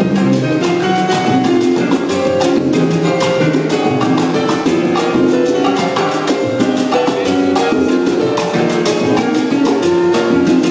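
Salsa band playing live, with congas driving the rhythm under upright bass and other instruments.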